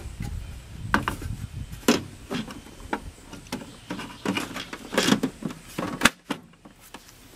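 Clear plastic water reservoir being fitted onto the side of a Keurig K55 coffee brewer: a string of irregular plastic clicks, knocks and rattles, the sharpest knock about six seconds in as it is pressed into place.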